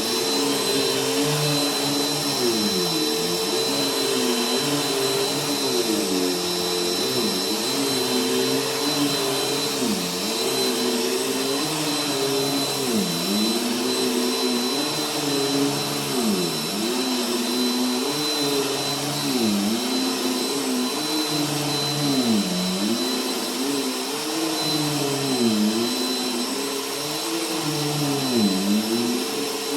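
Bissell bagless vacuum cleaner running on carpet. Its motor hum dips in pitch and recovers every few seconds, in time with the back-and-forth strokes.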